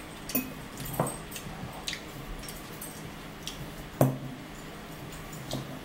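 Eating sounds: a fork clinking and scraping in a bowl of spinach salad, a few separate clinks with the sharpest about four seconds in, and chewing in between.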